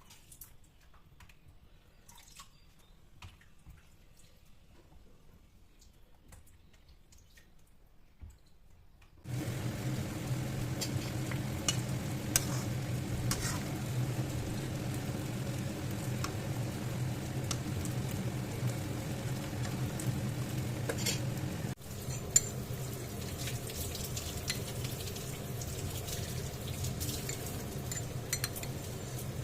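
Faint scattered clicks and drips at first, then about nine seconds in a steady sound of food cooking in a pot begins abruptly, with a low hum beneath it and occasional sharp clinks of a utensil against the pot.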